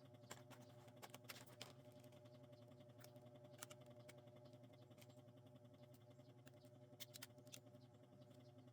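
Near silence: a low steady hum with a scattering of faint, sharp clicks, a few close together about a second in and again about seven seconds in.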